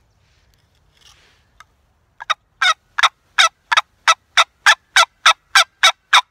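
Wooden turkey box call worked by hand, imitating a hen turkey's yelping. After about two seconds of quiet, it sounds a run of about a dozen short, evenly spaced yelps, about three a second.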